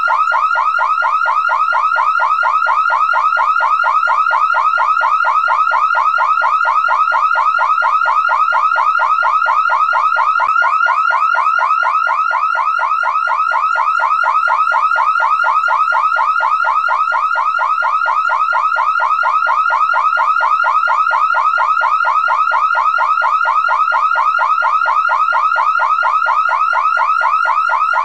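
Car alarm sounding continuously and loud: a fast, steady run of short rising chirps that repeats evenly without a break.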